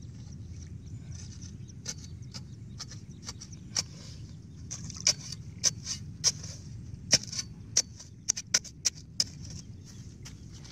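Metal spade chopping and scraping into wet clay soil: a run of irregular sharp strikes, few at first and coming faster about halfway through.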